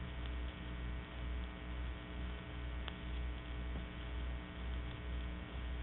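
Electrical mains hum from an old recording, with a low throb that pulses about twice a second and a faint click about three seconds in.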